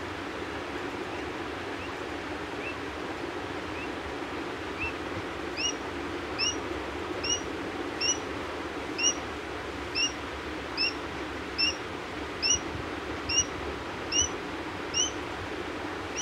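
Baby quail chick peeping: short rising chirps repeated about once a second, faint at first and louder from about five seconds in, over a steady background hiss.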